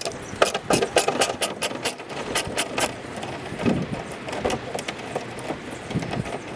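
Hand ratchet with an extension and 10 mm socket clicking as it works a bumper bolt, about four sharp clicks a second for the first three seconds, then fainter.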